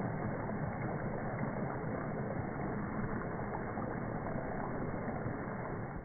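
Vegetable chips deep-frying in hot oil, a steady sizzle that cuts off suddenly at the very end.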